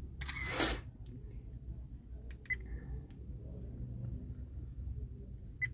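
Viofo A229 Pro dash cam playing its camera-shutter sound as it takes a snapshot, about half a second in. Two short high beeps from its buttons follow, one midway and one at the very end.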